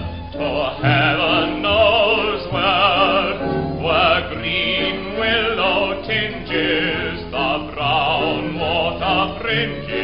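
Song with a male singer in an operatic style, his voice wavering with vibrato over a musical accompaniment.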